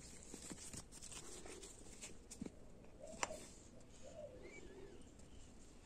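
Faint handling noises of nitrile-gloved hands turning a metal transmission seal retainer and working a tube of Ultra Black RTV silicone sealant around it: soft rustles and small clicks, with one sharp click about three seconds in.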